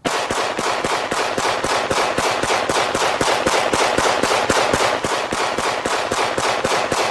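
A long hand-held string of firecrackers going off: a fast, unbroken crackle of sharp bangs that starts abruptly and keeps going.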